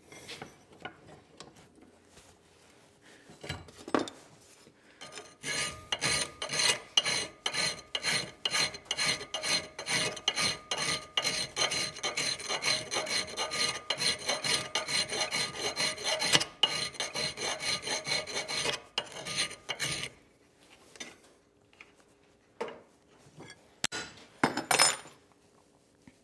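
A hand file rasping across a forged leaf-spring steel chisel clamped in a bench vise, in a quick steady run of strokes that starts about five seconds in and stops about twenty seconds in, with a ringing tone from the steel. A few scattered knocks come before and after. The file is cleaning up the chisel's shoulders to check for cold shuts.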